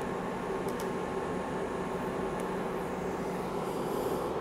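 Steady mechanical hum of shop machinery running, with a low droning tone and a few faint ticks.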